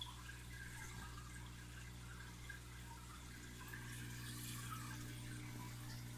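Saltwater aquarium's air bubbles and circulating water, a faint continuous fizzing and trickling, over the steady low hum of the tank's pump.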